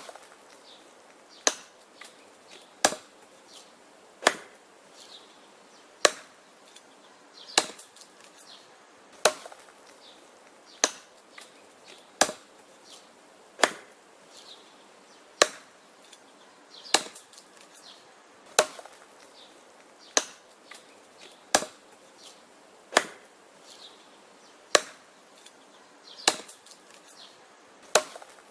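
Axe chopping wood: sharp, evenly paced blows about one every second and a half, with fainter knocks between some strikes.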